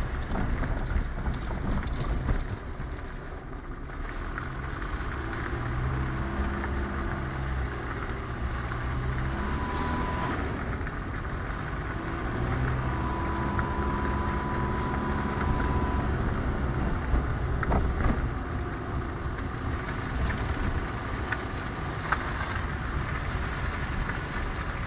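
Car driving slowly over a rough, broken lane, heard from inside the cabin: steady engine hum and tyre rumble, with the engine note pulling harder twice and a couple of small knocks from the bumpy surface.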